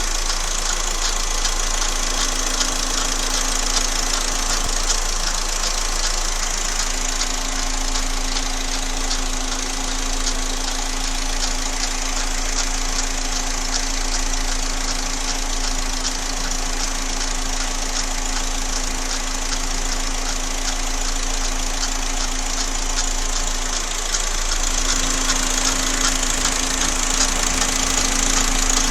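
Engine running steadily with an abnormal knocking noise in it, the noise the owner is trying to show; it gets slightly louder about 24 seconds in.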